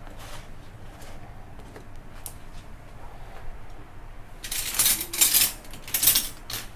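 Salt being handled in its container for a marinade: a few light clicks, then two short gritty rattles near the end, the second about a second after the first.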